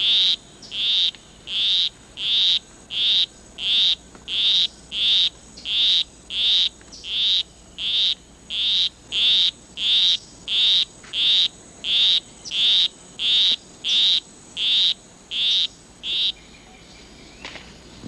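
Male poison arrow frog singing his monotonous courtship song: a steady series of short, high-pitched chirps, about one and a half a second, which stop near the end.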